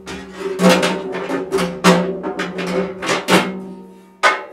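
Background music with a drum beat over a steady bass line.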